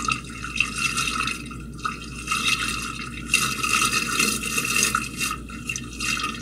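Water sloshing and splashing in a household sewer drain, with irregular louder splashes. Those who hear it liken it to someone wading through shin-deep water.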